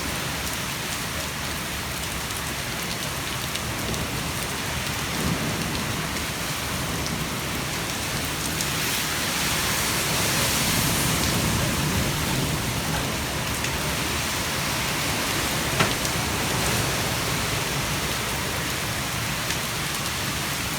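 Heavy rain and gusting wind of a thunderstorm gust front, a steady rush that swells about nine seconds in, with one sharp crack a few seconds later.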